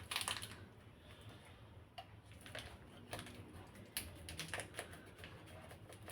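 Faint, irregular clicks, taps and light rustles of a container and a measuring spoon being handled, as baking powder is measured out. The loudest clicks come at the start and about four seconds in.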